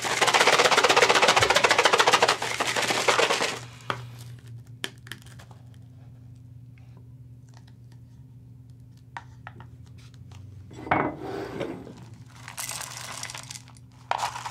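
Dry crunchy cereal poured into a bowl, a dense rattling rush for about three and a half seconds, followed by scattered light clicks and taps and a short second rush of rustling near the end.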